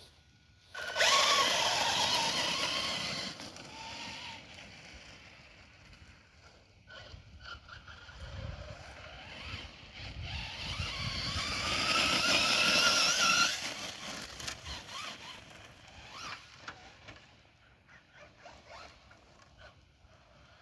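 Traxxas Slash 4x4 RC truck running on a 3S LiPo battery: its electric motor whining under throttle over the crunch of tyres on gravel. It is loud from about a second in, and again from about eight to thirteen seconds, where the whine rises in pitch, then fainter and patchy near the end.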